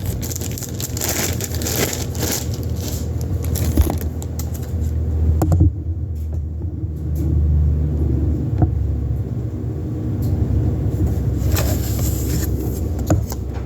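Packaging crinkling, rustling and scraping as the air nailer/stapler is taken out of its box, with handling clicks, over a steady low rumble.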